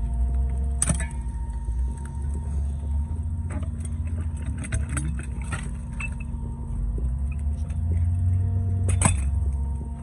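Concrete pump's engine running steadily, a continuous low hum with a few steady tones, with scattered crunches and knocks on top and two sharper knocks about a second in and near the end.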